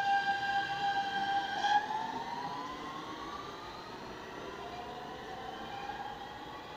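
R160 New York City subway train accelerating away from the platform: its electric traction motors give a steady whine that breaks off about two seconds in into rising whines as the train picks up speed. The sound fades as the train pulls away.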